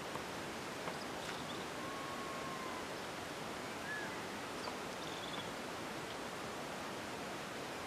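Steady outdoor background hiss with a few faint bird whistles: a drawn-out level whistle about two seconds in, then short chirps around four and five seconds in.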